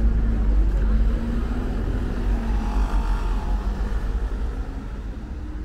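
City street traffic: a low vehicle engine rumble with a steady hum over the noise of the road, growing fainter toward the end.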